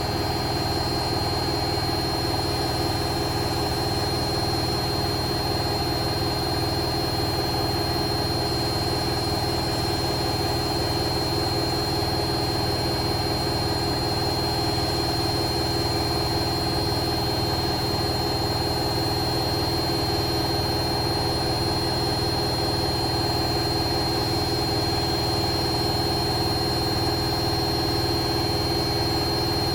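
Bosch WAE24366 washing machine spinning at a steady speed: a constant motor whine over the drum's rumble. The owner puts the noise down to a broken drum spider rather than bad bearings.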